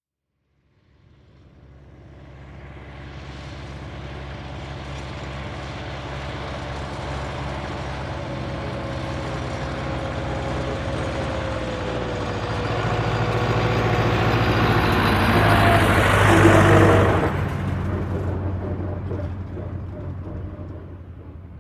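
Tractor engine driving past: it grows louder as it approaches, passes close about sixteen seconds in with a drop in pitch, then fades away.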